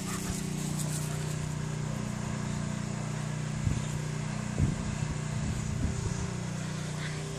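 A motor running steadily with a low, even hum, with a few short thumps about halfway through.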